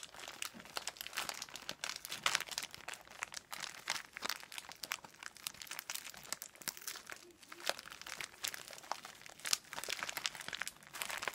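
Clear plastic packaging bag crinkling and crackling in irregular bursts as it is handled and worked open by hand.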